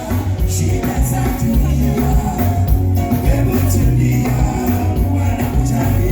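Band music with a heavy bass line, percussion and a singing voice.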